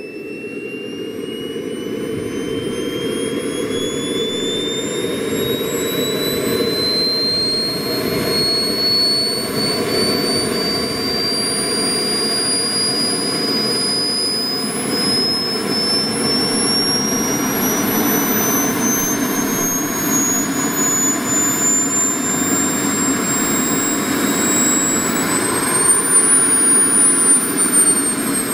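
Model jet turbine (210 size) in a delta-wing RC jet spooling up on the ground. A high whine climbs slowly and steadily in pitch over a broad rush of exhaust, typical of the turbine's start-up run. Near the end it briefly rises higher and louder, then eases back slightly.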